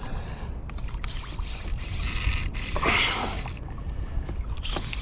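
Water lapping around a small fishing boat, with wind rumbling on the microphone; a rushing hiss swells for about two seconds in the middle.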